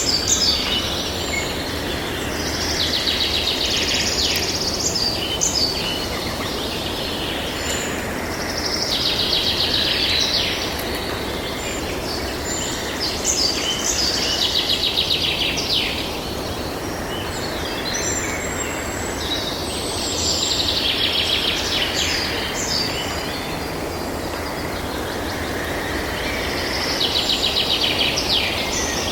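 Forest ambience: birds singing high, rapid trilling phrases every few seconds over a steady background hiss.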